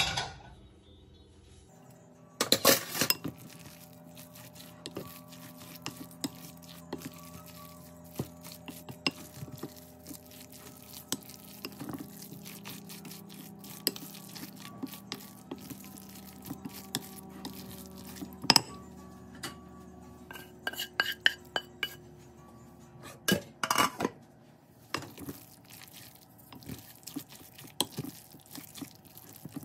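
A utensil stirring a thick, wet meat-and-cheese filling in a glass mixing bowl, with repeated clinks and taps against the glass. The loudest bursts of clinking come about two seconds in, once near the middle and again about three-quarters of the way through.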